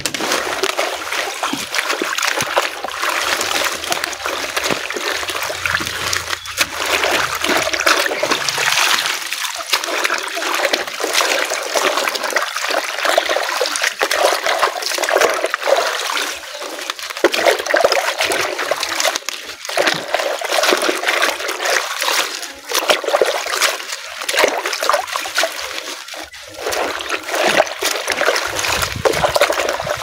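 Water splashing and sloshing in a plastic basin as papaya leaves are washed by hand, plunged and swished through the water and lifted out dripping.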